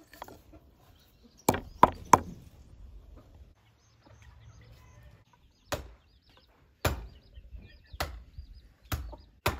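Firewood being chopped: a blade strikes a wooden log in single sharp knocks about a second apart. Near the start there is a quicker run of three wooden knocks.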